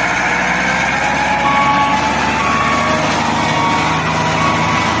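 Truck engine running steadily, with short reversing beeps about once a second starting a little over a second in.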